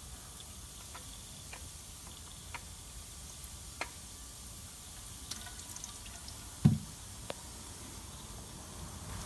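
Engine oil draining from a car's sump and oil filter housing into a drain pan: scattered drips over a faint steady trickle. One loud, low thump comes about two-thirds of the way through.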